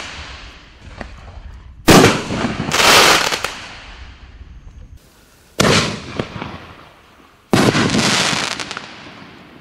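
Sky Painter 'The Kraken' 4-inch canister shells fired from a mortar tube: three loud sharp bangs, about two, five and a half and seven and a half seconds in, each trailing off into a long crackling hiss.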